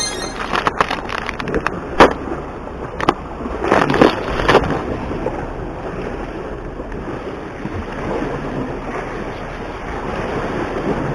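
Wind buffeting the microphone over waves washing against shore rocks, a steady rushing noise. In the first few seconds, sharp clicks and rattles of fishing tackle being handled: lures in a plastic tackle box and a snap being clipped on.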